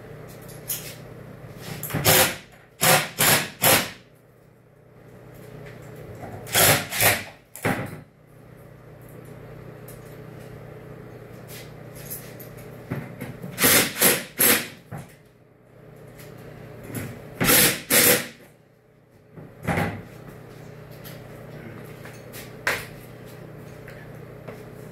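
Tools and metal hardware knocking and clattering in short groups of two to four sharp strikes, with a few single knocks later, over a steady low hum.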